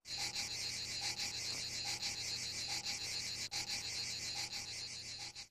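Chorus of chirping insects, dense and fast-pulsing, with a short lower call recurring a little more than once a second; it stops abruptly at the end.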